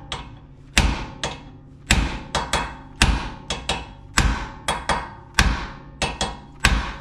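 Hammer striking steel at a truck's front ball joint, about seventeen sharp ringing blows at an uneven pace of two or three a second, beating out a seized, rusted cotter pin.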